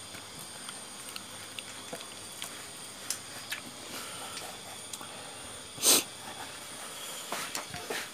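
Light scattered clicks and taps of a knife chopping raw beef on a wooden chopping block, over a faint steady high whine. About six seconds in comes one short, loud burst of hissing noise.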